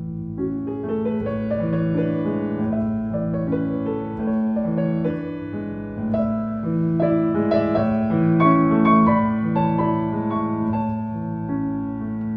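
Classical piano music: a repeating pattern of broken chords over a low held bass note.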